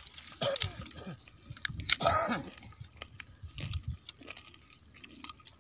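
Crab shells cracking and crunching as small crabs are pried apart and cleaned by hand, in irregular clicks and snaps, the loudest about two seconds in.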